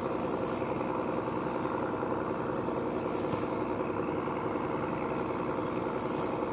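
Small outboard motor idling with a steady drone.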